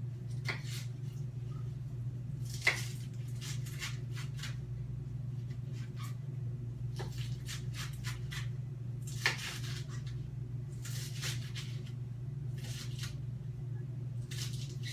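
A kitchen knife cutting lettuce into bite-sized pieces: irregular crisp slicing strokes and light taps, with two sharper knocks about three and nine seconds in.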